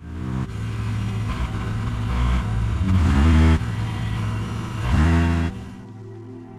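Paramotor engine running and revving, its pitch rising twice, near the middle and again about five seconds in. It cuts off abruptly about five and a half seconds in, and soft music takes over.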